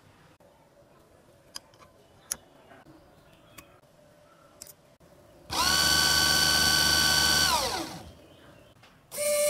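A 775 12 V DC motor driving a GT2 timing belt from a 20-tooth to a 60-tooth pulley starts suddenly about five and a half seconds in and runs at full speed with a steady high whine. After about two seconds the power is cut and the whine falls in pitch as it spins down. Before it starts, only a few faint clicks of parts being handled.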